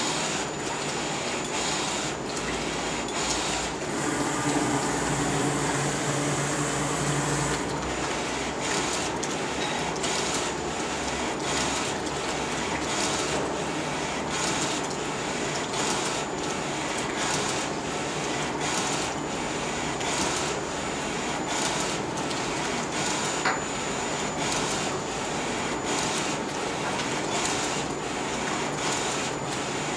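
Flatbed digital T-shirt printer running, its print-head carriage shuttling across the platen with a steady mechanical whirr and a regular knock about every two-thirds of a second. A louder hiss and hum join in between about 4 and 7.5 seconds, and there is a single sharp click a little after 23 seconds.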